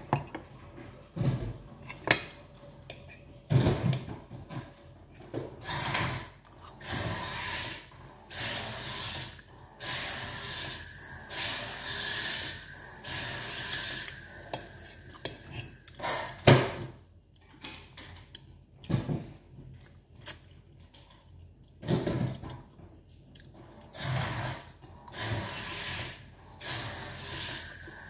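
Close-up eating sounds: chewing and mouth smacking on sticky rice cake and mango in irregular short bursts, with a few sharp clinks and knocks of a metal spoon on a plate.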